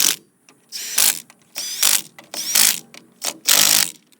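Hand ratchet being worked in repeated strokes, a burst of clicking about once a second.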